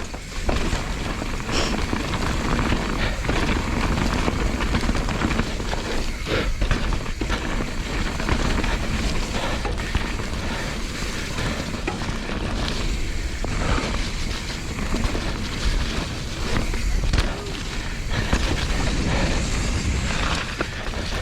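Mountain bike descending a wet, muddy, rocky trail: steady wind rumble on the microphone with tyre noise and scattered knocks and clatter from the bike over the rough ground.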